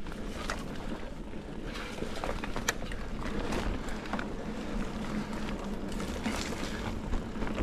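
Mountain bike rolling along a dirt trail, heard on an action camera: a steady rumble of tyres and wind, broken by irregular sharp clicks and rattles as the bike goes over rough ground.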